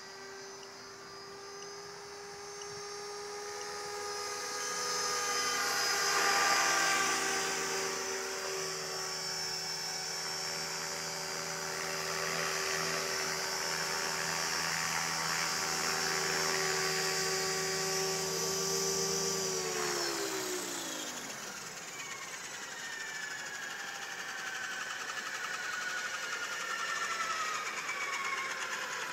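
Electric RC model helicopter's motor and rotors running with a steady whine, louder about six seconds in. About twenty seconds in, the pitch glides down as the motor is throttled off and the rotors spin down, leaving a falling whine.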